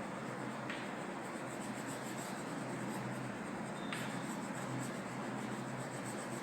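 Yellow colour being shaded onto drawing paper in quick, repeated back-and-forth strokes, a soft steady scratching of the colouring stick against the paper.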